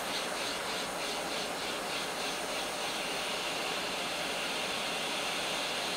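Hot air rework station blowing a steady hiss of air through its nozzle, set to 380 °C at 50% airflow, heating a chip on a phone logic board to desolder it.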